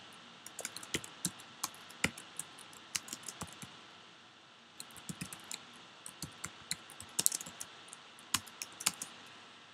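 Typing on a computer keyboard: a run of irregular key clicks, with a pause of about a second partway through.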